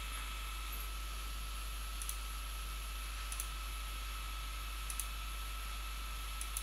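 Computer mouse clicking: four sharp clicks or quick pairs of clicks, a second or two apart, over a steady background hiss.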